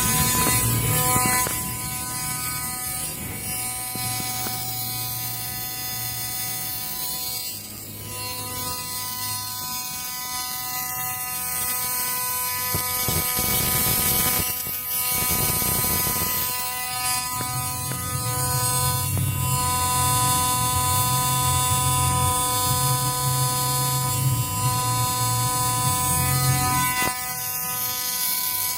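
AC TIG welder with high-frequency arc welding aluminum: a steady electric buzz and hum, with a break of a few seconds about halfway through before the arc resumes.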